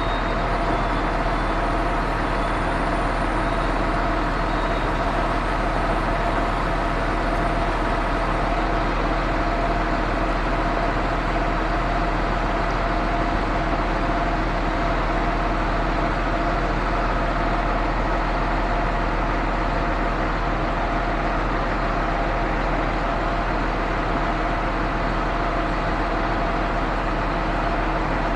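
Concrete pump truck's diesel engine running steadily at constant revs, with a steady whine over a deep rumble.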